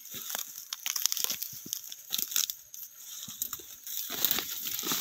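Footsteps through dry grass and weeds: irregular rustling and crackling of stalks and leaves being trodden, thickest about four seconds in.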